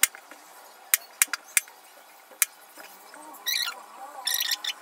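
A kitchen knife cuts through a peeled raw potato on a plastic cutting board. About five sharp knocks of the blade hitting the board come first, then two longer rasping slices through the potato, one at about three and a half seconds and one near the end.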